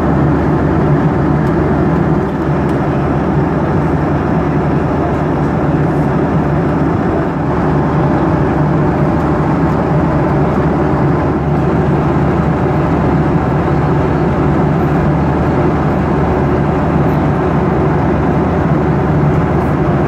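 Steady in-flight cabin noise of a Boeing 737-800: a constant engine and airflow rush heard from a seat inside the cabin, low and even with no changes.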